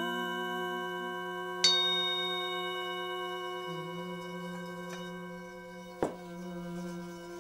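Background music of bell-like struck tones, struck twice about four seconds apart, each ringing out slowly over a steady low sustained tone.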